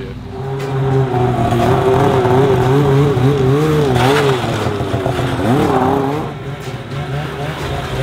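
Polaris 600 two-stroke snowmobile engine running, its pitch wavering up and down as the throttle is worked, with a quick rising rev about five and a half seconds in before it settles lower.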